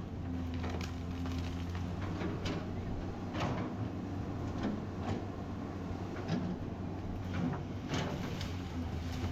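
Excavator's diesel engine running steadily, with irregular knocks and clunks over it.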